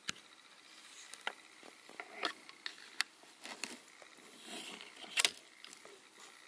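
Rabbit chewing: a scatter of small, irregular clicks and wet smacks, loudest a little past five seconds in.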